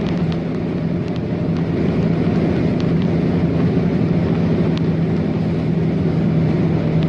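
Steady drone of a moving vehicle, with a constant low hum and road noise, and a few faint ticks.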